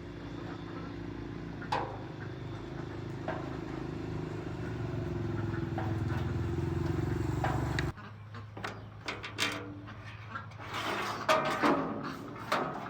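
A motor running steadily with a low hum, growing slowly louder, then cutting off abruptly about eight seconds in; after it come scattered knocks and clicks.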